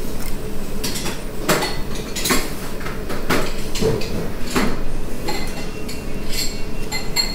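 Chopsticks and a soup spoon knocking and clinking against a ceramic ramen bowl as noodles are stirred and lifted. Several of the clinks near the end ring briefly, over a steady background hum.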